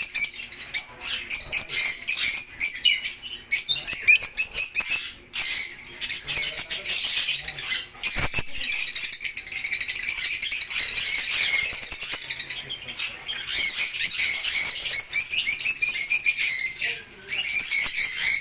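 Lovebirds chattering: a continuous, rapid, high-pitched stream of chirps and squeaks with many calls overlapping.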